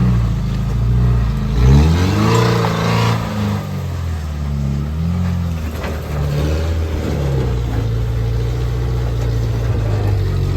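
Off-road vehicle's engine revving up and down under load in two short surges, about two and six seconds in, then running steadily. A brief rush of noise comes with the first surge.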